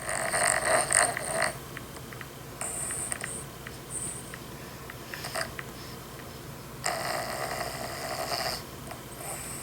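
Snoring: a long rasping breath for about the first second and a half, a few shorter ones, then another long one about seven seconds in, with quieter gaps between.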